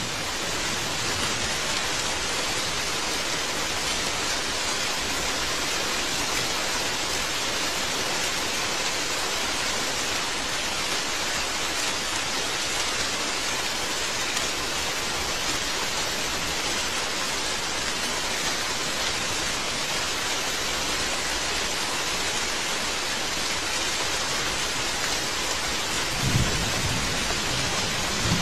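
Steady, heavy rain that builds up over the first second. Near the end a low rumble of thunder comes in.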